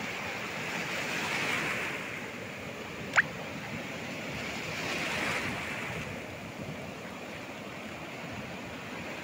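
Ocean surf breaking and washing up the beach: a steady rush of waves and foam that swells twice. About three seconds in there is a single brief sharp click.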